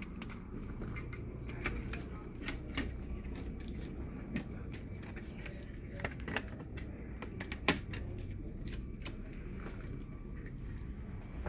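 Scattered light clicks and taps from handling the laptop's keyboard parts during reassembly, a few per second at most, over a low steady hum.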